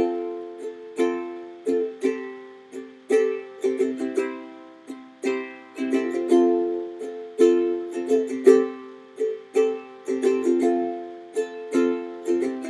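Instrumental break on a ukulele: chords plucked and strummed in a steady rhythm, each one ringing and fading before the next, with no singing.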